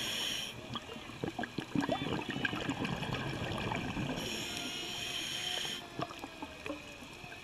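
Scuba diver breathing through a regulator, heard underwater: a high, ringing hiss of an inhale at the start and again about four seconds in, with gurgling exhaled bubbles and scattered clicks between.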